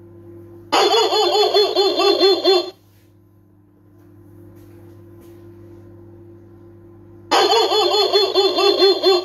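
Electronic barking-dog motion-sensor alarm playing recorded dog barking through its small speaker: two bursts of rapid barks, each about two seconds long, about six seconds apart.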